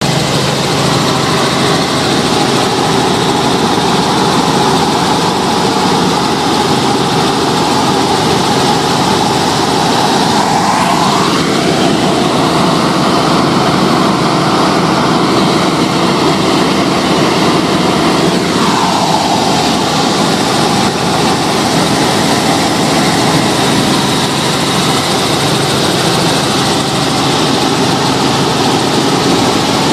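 Helicopter in flight, heard from inside the cabin: a loud, steady drone of engine and rotor. A higher tone rises about a third of the way through, holds, and falls back again a few seconds later.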